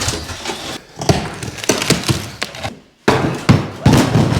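Several wooden knocks and thumps in quick succession.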